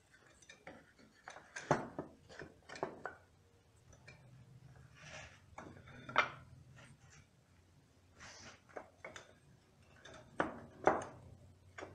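Wooden bucket staves knocking and clacking against each other and the wooden form as they are set upright in a ring: irregular, scattered knocks, a few sharper than the rest, with brief scraping between them.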